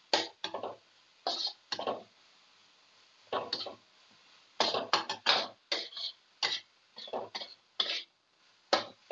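Spatula scraping and tossing shredded cabbage in a wok as it is stir-fried. It comes in short, sharp strokes at an irregular pace, a quick run of them in the middle.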